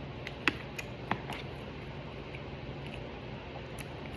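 Quiet eating sounds: a person chewing, with a couple of sharp clicks about half a second and a second in, over a steady low hum.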